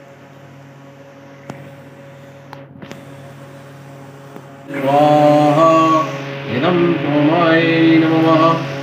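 Hindu devotional mantra chanting over a steady drone: the drone alone at first, then a voice comes in about halfway through, loud, with long held notes that slide between pitches.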